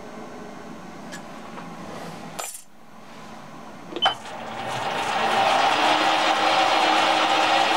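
Sieg SC4 mini lathe running with a steady low hum, a sharp metallic clink about two and a half seconds in, then a click near four seconds and the spindle running up to a louder, steady whine with a hiss.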